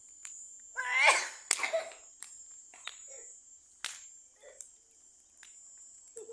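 Crickets chirring steadily while a wood bonfire gives off sharp, scattered pops and crackles. About a second in, a person's short vocal outburst, like a laugh, is the loudest sound.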